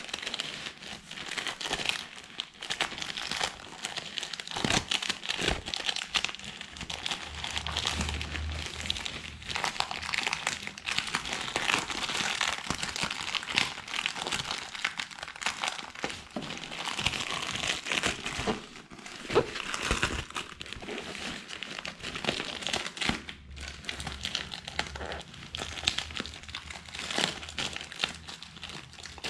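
Plastic packaging and a rain jacket crinkling and rustling without a break as the package is opened and the jacket handled, a dense run of small crackles.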